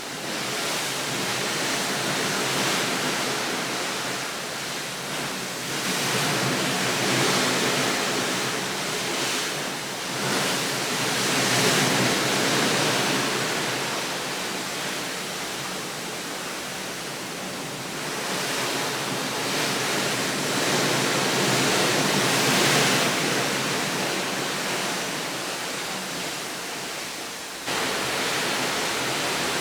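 Steady rushing of moving water, swelling and easing every few seconds, and abruptly louder near the end.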